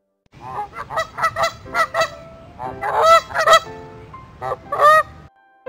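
A goose honking, a quick run of about a dozen short honks lasting about five seconds.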